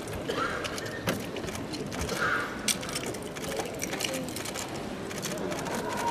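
Darts-hall ambience of low background chatter, broken by a few scattered sharp clicks from the soft-tip electronic dartboards.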